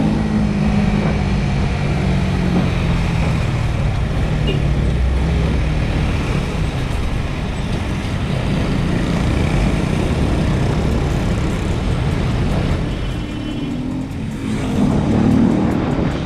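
Honda RS150 motorcycle's engine running while riding, under a steady rush of wind noise. The engine pitch falls over the first few seconds as the throttle eases, then climbs again near the end.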